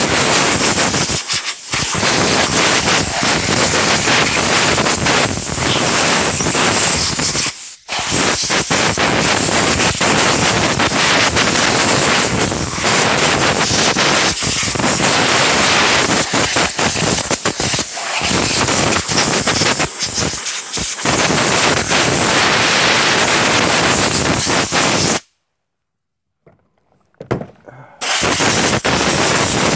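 Compressed-air blow gun blasting dust and sawdust off a chainsaw: a loud, steady hiss, let off briefly a few times, with a stop of a few seconds near the end before it starts again.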